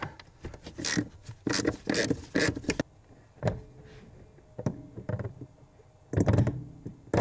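A hand wrench loosening the 13 mm bolt on the brake booster's metal mounting bracket: a run of sharp metallic clicks, two or three a second, for about three seconds. Quieter scattered clicks and knocks follow, with a louder clatter about six seconds in.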